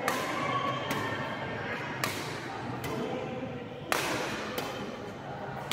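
Badminton racket strings hitting a shuttlecock in a rally: sharp pops every second or two, the loudest about four seconds in.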